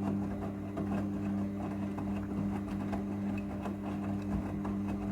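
Front-loading washing machine running with a steady hum, with faint scattered clicks over it.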